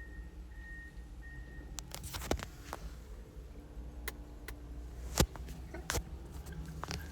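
Reversing beeper on a heavy vehicle, beeping at a single pitch about every 0.7 s for the first couple of seconds over a steady low engine rumble. After the beeping stops come a few sharp knocks, the loudest about five seconds in.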